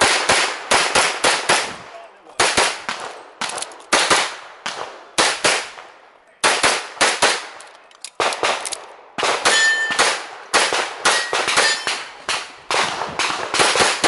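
Handgun shots fired in rapid pairs and quick strings, broken by short pauses as the shooter moves between positions during a practical shooting stage. About nine and a half seconds in, a brief ringing follows a hit, typical of a struck steel target.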